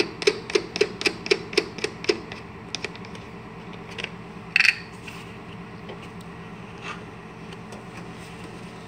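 A quick run of about eight light mechanical clicks, about four a second, each with a short ring, then a few scattered clicks and knocks, over a low steady hum.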